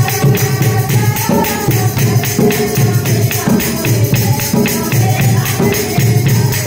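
Women singing a Haryanvi devotional folk song (laguriya) to a hand-played dholak drum, with hand claps and jingling percussion keeping a steady, brisk beat.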